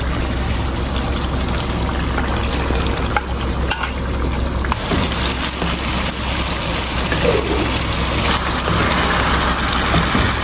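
Chicken pieces in a yogurt-and-spice masala sizzling in hot ghee in a non-stick pan, stirred with a wooden spatula. This is the frying-down stage, until the ghee separates from the masala.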